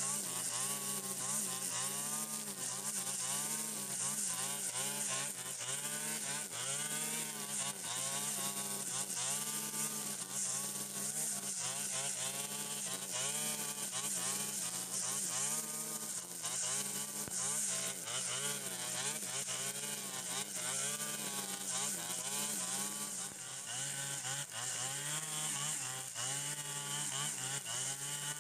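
Stihl FS 120 brush cutter's two-stroke engine running hard as it cuts thick grass, its pitch dipping and recovering over and over with each sweep through the grass, over a steady high hiss.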